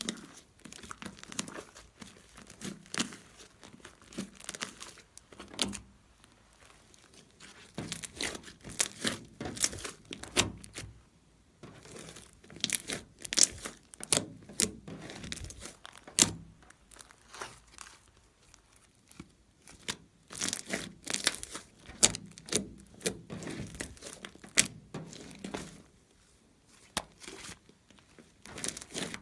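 Slime being squeezed, pressed and stretched by hand, giving clusters of sharp crackles and pops with short lulls between handlings.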